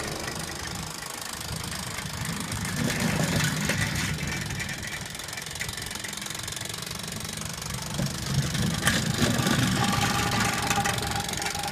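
Mamod TE1a live-steam model traction engine running, its small steam engine making a rapid, steady beat as it pulls along, louder twice as it comes by.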